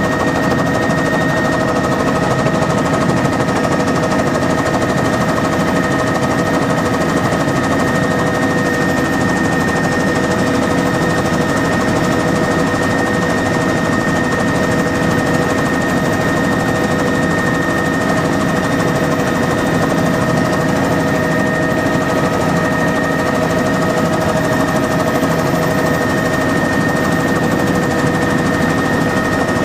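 Helicopter in flight heard from inside the cabin: steady, loud rotor and engine noise with several steady whining tones running through it.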